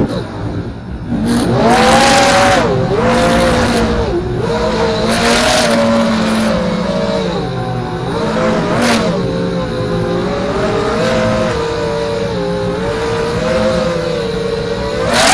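FPV racing quadcopter's motors and propellers whining in flight, the pitch rising and falling again and again with the throttle, with short rushes of wind noise every second or two.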